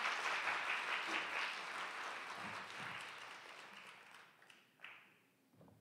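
Audience applauding, the clapping loud at first and dying away over about four seconds.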